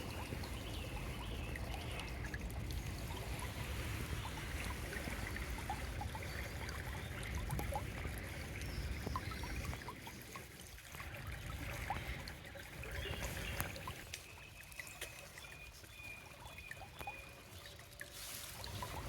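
Stream water trickling and running, a continuous watery hiss with small scattered splashes.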